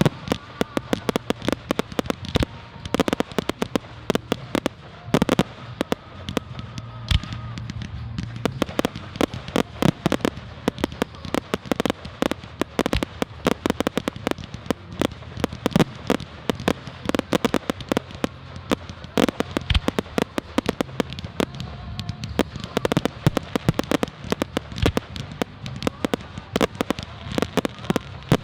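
Fireworks display: a continuous barrage of bangs and crackles, several bursts a second, with louder booms scattered through it.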